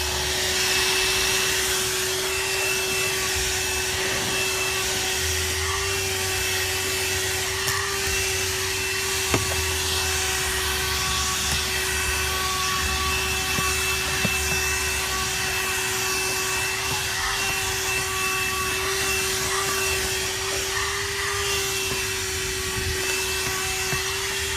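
Vehemo YD508 12V handheld car vacuum cleaner running steadily: a constant motor whine over the rush of air, with a couple of faint ticks about nine seconds in.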